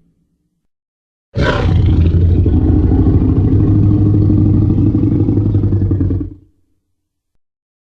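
Tyrannosaurus rex roar sound effect: one long roar starting about a second in with a sharp, bright onset, then holding as a deep growl for about five seconds before fading out.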